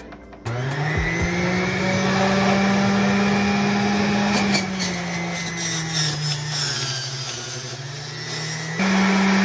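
Electric centrifugal juicer switched on, its motor spinning up within a second to a steady high whine. The pitch sags and wavers as vegetables are pushed down the feed chute and shredded, then jumps back up near the end as the load clears.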